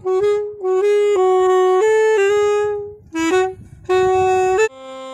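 Alto saxophone played solo, a melody of held notes in short phrases with brief breaks between them. Near the end the sound drops noticeably quieter.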